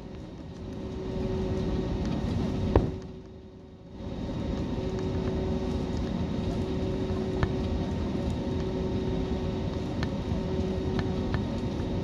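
Airliner cabin noise while taxiing: a steady rumble with a constant hum. A sharp knock about three seconds in is followed by a brief quieter stretch, and a few light clicks come later.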